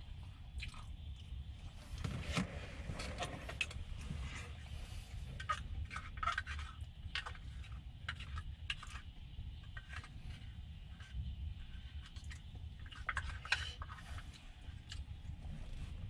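Eating and utensil handling: a spoon and small plastic food containers and a jar clicking and scraping in scattered, irregular taps, over a steady low hum.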